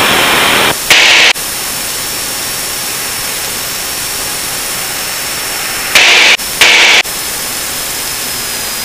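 Steady hiss of the Lancair Legacy's engine and airflow in the cockpit in flight. It is broken by three short, loud bursts of static, one about a second in and two close together about six seconds in.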